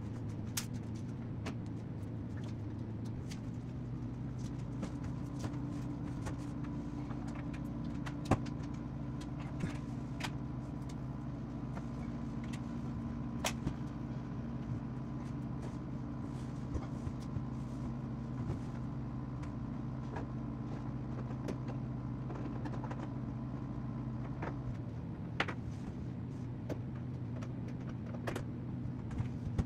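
Steady low mechanical hum, with a few faint clicks and taps scattered through it.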